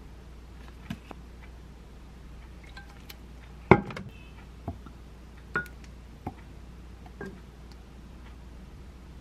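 A wooden spoon clinking and knocking against a glass mug while a sauce is measured out and stirred: about seven separate light clicks, the loudest a sharp knock with a short ring a little under four seconds in.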